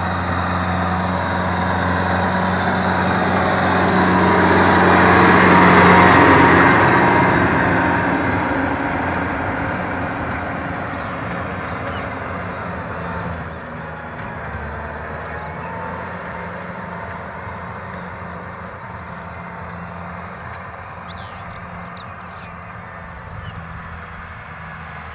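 Kubota M6040 SU tractor's four-cylinder diesel engine running steadily while pulling a rotary tiller through dry paddy soil. It is loudest about six seconds in, then fades steadily as the tractor moves away across the field.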